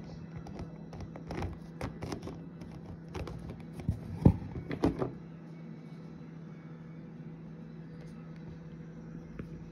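Handling noise from toy animal figures being moved about and pressed against the phone: a scatter of taps and knocks, the loudest about four seconds in, then a quieter stretch over a steady low hum.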